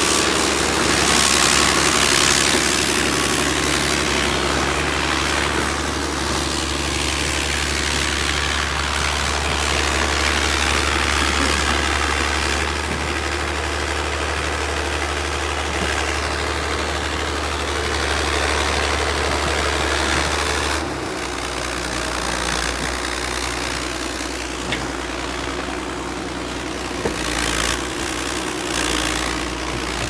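Crawler bulldozer's diesel engine running steadily as the machine works its blade through earth and roots. The engine note drops a little about two-thirds of the way through.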